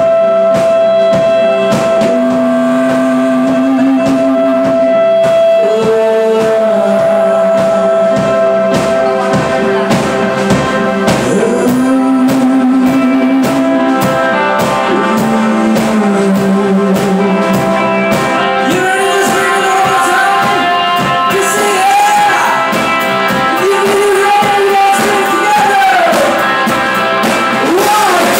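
Live rock band playing electric guitars and drum kit under a lead vocal. Long held notes run through the first half, and sliding, bending sung notes come in over the second half.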